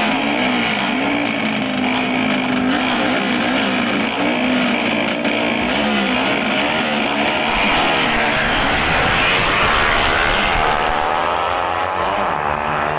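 Small drag-racing motorcycle engines revving at the start line, their pitch rising and falling as the throttles are blipped. Near the end the engine pitch climbs steeply and repeatedly as the bikes accelerate hard.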